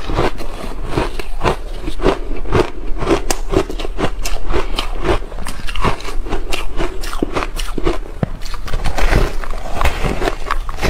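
Slushie ice bar being bitten and chewed, a close run of crisp, irregular crunches, several a second at times.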